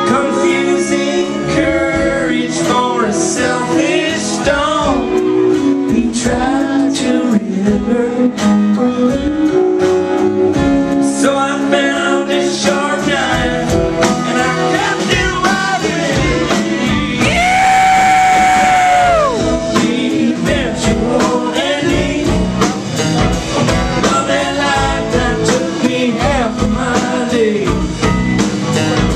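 Live band playing a song: male lead vocals over electric guitars and a steady beat. About two-thirds of the way through, a long high note is held for about two seconds and then slides down.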